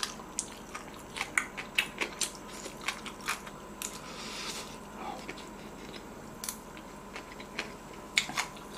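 Close-up crunchy chewing of a triangle kimbap pressed crisp in a waffle maker, with its scorched rice crust crackling in short sharp bites, thickest in the first few seconds.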